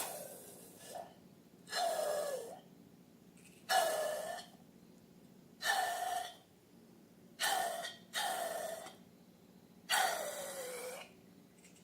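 Short bursts of rushing air, about six of them, one every one to two seconds, each with a faint tone that drops in pitch as it fades.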